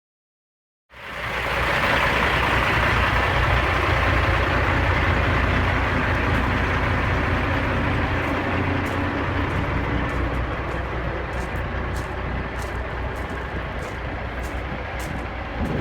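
Semi truck running: a steady low diesel engine rumble under a broad hiss that starts about a second in and slowly fades, with faint ticks in the second half.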